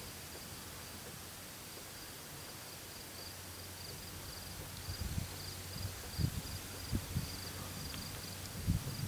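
Night insects chirping in a steady, high, evenly pulsed trill, with a few short low thuds in the second half.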